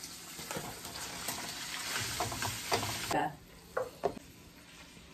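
Raw minced meat frying in a wok, sizzling as a wooden spoon stirs and breaks it up while it browns. The sizzle drops away about three seconds in, followed by two short knocks.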